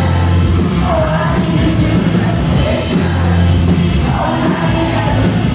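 A live pop-rock band playing with a sung vocal line over heavy bass, with crowd noise mixed in.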